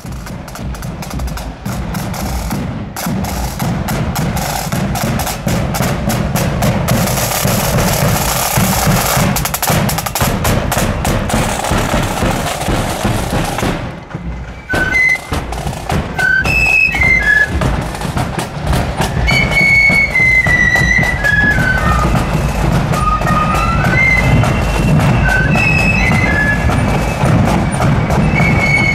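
Marching flute band: snare drums rolling with a bass drum beat for about the first half, then, after a short break, the flutes strike up a melody over the drums.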